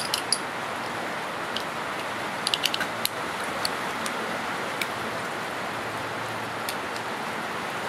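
Scattered light clicks and clinks of brass cartridges and an M1 Garand's en bloc clip being handled, with a quick run of clicks about two and a half seconds in, over a steady background hiss.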